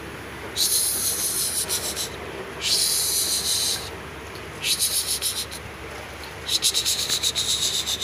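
Cockatiel hissing in four harsh, pulsing bursts of about a second each, a defensive hiss at an approaching hand.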